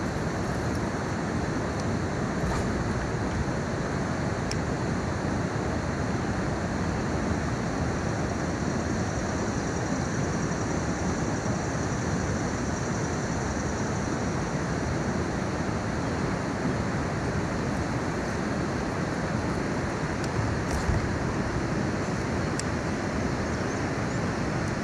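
Steady rush of flowing river water, an even hiss with no change in level, with a few faint ticks over it.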